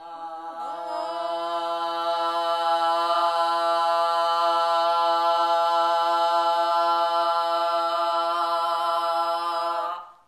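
Two women's voices toning a single long vowel note together for root-chakra healing, swelling over the first couple of seconds, then held steady at one pitch and stopping near the end.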